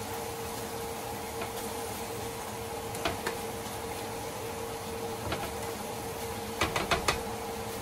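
Plastic spatula tapping and scraping against a nonstick frying pan as a raw ground-pork and vegetable mixture is stirred. There are a few sharp clicks about three seconds in and a quick cluster near the end, over a steady background hum.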